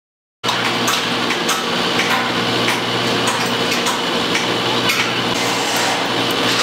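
Construction-site machinery noise: an engine running steadily with a low hum, scattered with short metallic clanks and ticks. It cuts in abruptly about half a second in.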